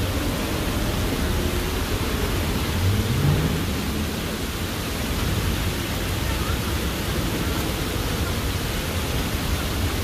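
Water cascading down a stone fountain wall: a steady rushing hiss over a low rumble. A brief low rising tone about three seconds in.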